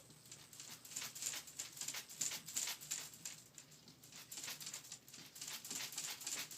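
Kittens play-fighting: quiet, rapid, irregular scratchy pattering of paws and claws scuffling on a surface.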